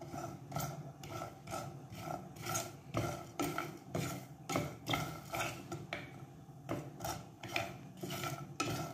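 Wooden spatula stirring and scraping a dry frying pan full of almonds, coconut pieces, coriander seeds, poppy seeds and peppercorns, the seeds rattling with each stroke, about two strokes a second. The nuts and spices are being dry-roasted with no oil.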